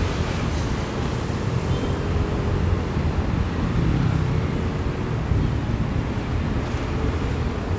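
On-board sound of a motorcycle taxi ride: the motorcycle's engine running steadily under way, with wind rumbling on the microphone and road traffic around.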